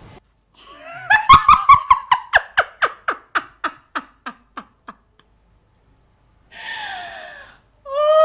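A woman laughing loudly, a long run of "ha-ha-ha" pulses that slows and fades away over about four seconds. A short breathy sound follows, and near the end a drawn-out voiced "ohh" that falls in pitch.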